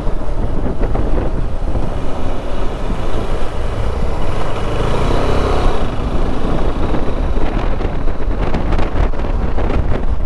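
Motorcycle riding along, its engine running under heavy wind buffeting on the microphone.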